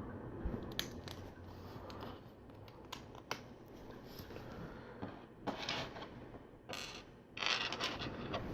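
Small plastic LEGO pieces being handled and pressed together: scattered light clicks with a few short rustling rattles of parts.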